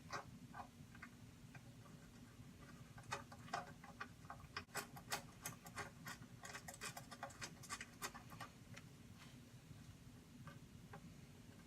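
Faint, irregular light clicks and ticks of small metal hardware being handled and fitted: tiny screws and washers fastening spark arrestors to a bench grinder's wheel guards. The clicks come thickest in the middle, over a faint steady hum.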